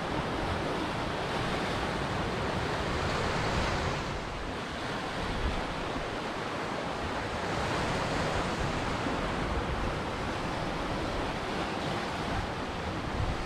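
Ocean surf: a steady rush of waves breaking and washing in. It eases off slightly about four seconds in, then builds again.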